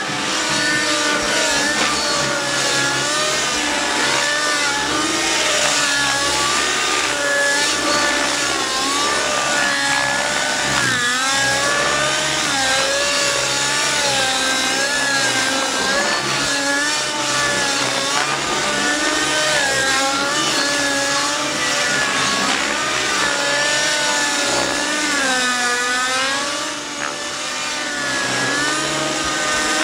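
Outrage Velocity radio-controlled helicopter's nitro engine and rotor blades running hard through aerobatics. The pitch keeps rising and falling as the engine and rotors load and unload in the manoeuvres.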